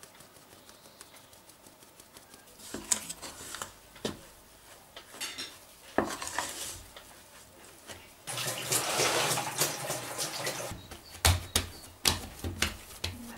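A metal spoon stirring and scraping against the inside of a stainless steel pot, with clinks of metal on metal, as flour is worked into a crumbly shortcrust dough. The scraping is loudest in a stretch after the middle, and a few sharp knocks come near the end.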